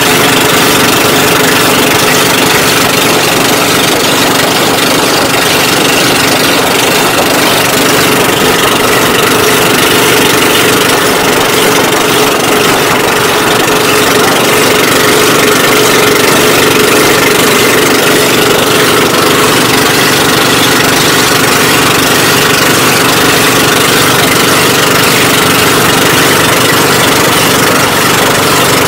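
Engine of an outrigger boat (bangka) running loud and steady while underway, heard from aboard the boat.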